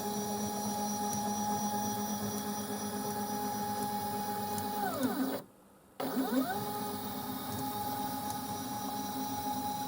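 Stepper motors of a CNC 2418 desktop router driving an axis: a steady whine that falls and stops about five seconds in, then rises again about half a second later as the axis starts moving once more.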